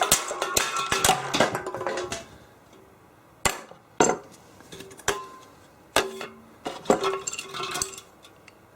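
A run of sharp clicks and metallic clinks from objects being handled, dense for the first two seconds and then single clicks about once a second, with faint music underneath.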